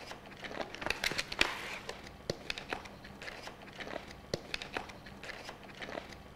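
Light handling noises: scattered sharp clicks and a brief crinkle about a second and a half in, as hands work the door latch and stainless steel body of a food dehydrator cabinet.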